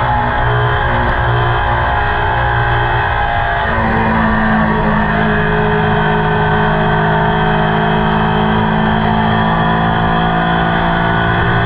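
Ducati Panigale superbike engine and exhaust running at a steady cruise while riding; the engine note shifts about four seconds in, then holds steady.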